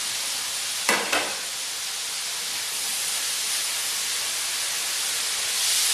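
Vegetables sizzling steadily in a hot wok, with two quick knocks about a second in and a louder surge of hissing near the end.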